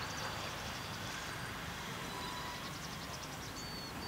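Steady background hum of open-air ambience with small birds chirping faintly, mostly in the first second and again near the end.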